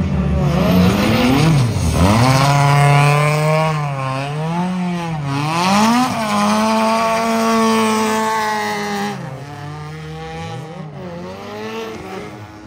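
Drift car engine revving hard, its pitch swinging up and down again and again as the car slides sideways through the corner, with tyres screeching. It fades somewhat about nine seconds in.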